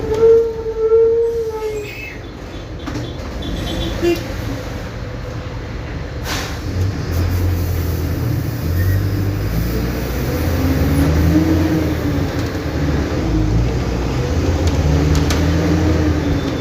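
Mercedes-Benz OF-1722M bus diesel engine pulling away, its pitch rising and falling again and again from about seven seconds in. A steady high squeal sounds for about two seconds at the start.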